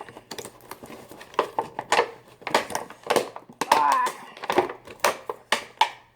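Toy blaster packaging being pulled open by hand, cardboard and plastic, giving a run of irregular rips, crackles and clicks.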